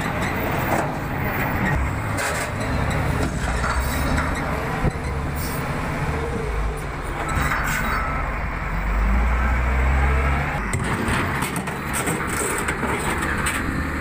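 Wheel loader's diesel engine running steadily under load as the bucket pushes rock, with scattered clanks and scrapes. The engine rumble grows deeper and louder about two-thirds of the way through, then eases back.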